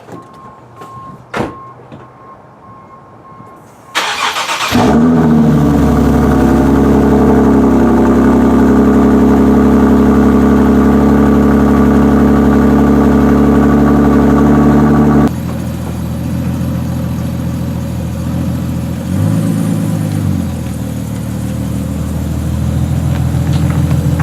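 A Nissan Z car's engine cranks and catches about four seconds in, then runs at a steady, loud fast idle on a cold, icy morning. The sound drops abruptly about fifteen seconds in, and the engine gives a brief light rev near twenty seconds. Before the start there is a faint steady beep tone and a single knock.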